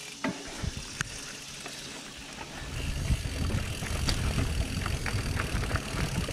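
Mountain bike getting rolling on dirt singletrack, with a couple of sharp clicks in the first second. From about two and a half seconds in, a dense low rumble of wind buffeting the unshielded camera microphone and tyres on the dirt builds up and holds as the bike gathers speed.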